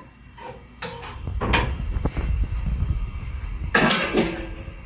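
Kitchen handling sounds: a few sharp knocks early on, then a louder clatter about four seconds in, over a low rumble.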